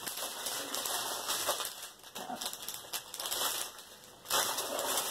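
Small clear plastic bags of diamond painting drills crinkling as they are handled, in three bursts.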